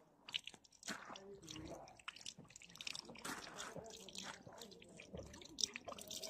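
Faint drips and small splashes of water falling from a tap spout, with the scattered wet sounds of a yak drinking at it.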